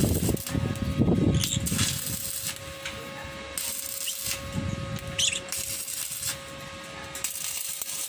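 Intermittent light clattering and scraping as a cage roof and its wire frame are handled, in short scratchy bursts, over a faint steady hum.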